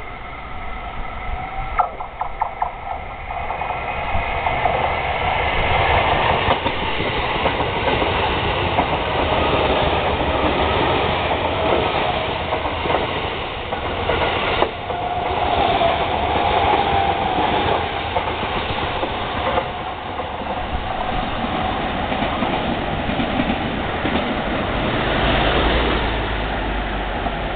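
JR East E231 series electric commuter train running past at speed. The sound of the train grows over the first few seconds and stays loud until near the end, with a few sharp clicks along the way.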